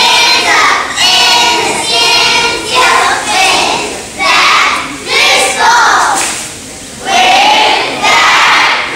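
Group of young cheerleaders shouting a cheer in unison, in loud short phrases about a second long with brief pauses between them and a longer pause about six seconds in.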